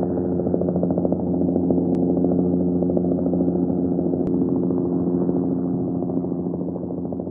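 Helicopter running steadily, its engine tone overlaid with a fast, even pulsing chop from the rotor blades, growing slightly quieter near the end.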